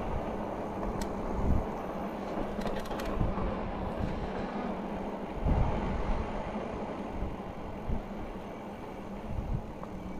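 Riding noise of an Engwe Engine Pro e-bike on a tarmac towpath: steady wind rush on the microphone and tyre rumble, with several short low thumps. The noise eases slightly as the bike slows.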